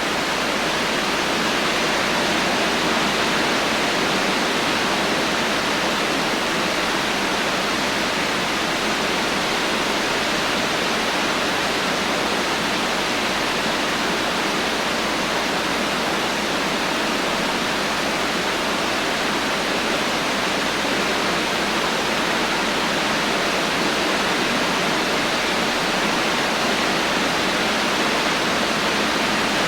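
Heavy rain falling, a dense steady hiss without thunder.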